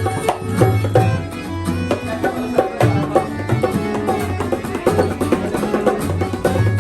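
Worship band music with drums keeping a steady beat under sustained deep bass notes.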